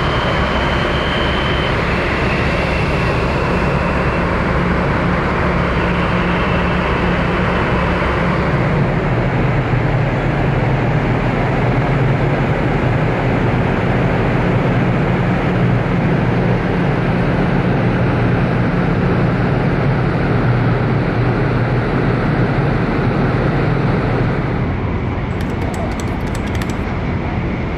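Steady low hum and rushing noise of a large ferry's machinery and ventilation, heard from the open deck. The hum shifts and grows stronger about eight seconds in.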